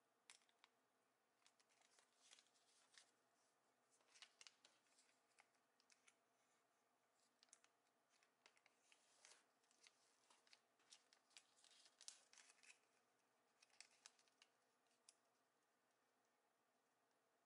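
Faint rustling of a sheet of origami paper being folded by hand, with many short, crisp ticks as fingers press and run along the creases, coming in irregular clusters with brief pauses.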